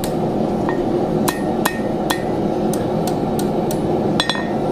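Blacksmith's hand hammer striking the two tines of a twisted quarter-inch mild-steel fork against a steel anvil, about ten light, irregular blows. Several leave a short high ring, and two strikes come close together near the end.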